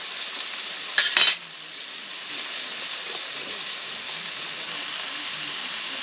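Food sizzling in a pan, a steady hiss, with a short metal clatter of cookware or cutlery about a second in.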